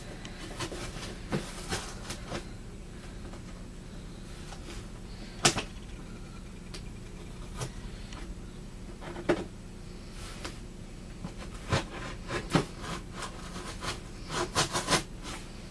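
Scattered clicks, taps and scrapes of a mailed package being handled and opened, with a sharp click about five seconds in and a quick run of clicks near the end, over a steady low hum.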